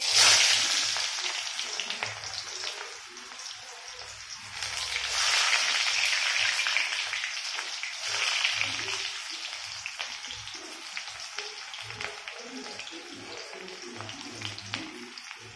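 Chopped onions tipped into hot mustard oil in a kadhai, hitting the oil with a sudden loud sizzle that then carries on as a steady frying hiss. The hiss swells again about five seconds in and about eight seconds in.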